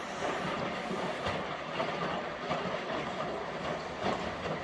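Indesit washing machine in the rinse of its Express program, the drum turning the wet clothes with a steady churning and sloshing.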